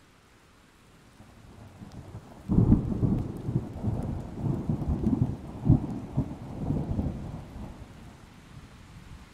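A thunderclap: a low rumble builds about a second in, breaks into a loud crack about two and a half seconds in, then rolls on in uneven peals and dies away near the end.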